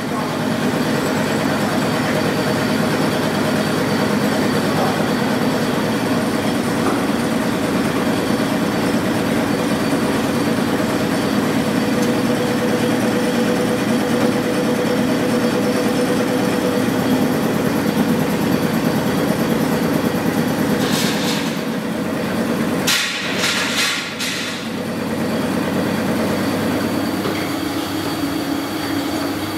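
Roll-forming machine running as flat steel strip is fed through its rollers and shaped into a rim profile: a steady mechanical clatter over a low hum. About two-thirds of the way through come a few short, higher-pitched screeches.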